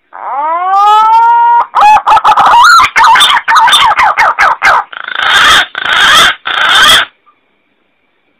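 Green pigeon (punai) call recording played as a hunting lure. It starts with one rising whistled note, runs into a quick string of warbling, wavering whistles, and ends with three harsh rasping notes.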